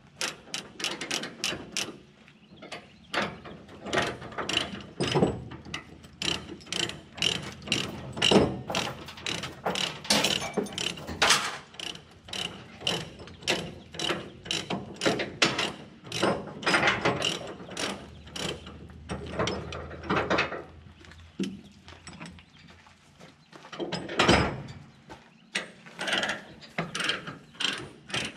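Ratchet tie-downs holding a compact track loader to a trailer being worked by hand, their pawls clicking in quick runs with short pauses and the odd knock of hardware.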